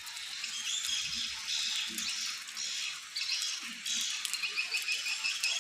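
Swiftlets giving fast, high twittering chirps with sharp ticks, a dense overlapping chatter of many birds.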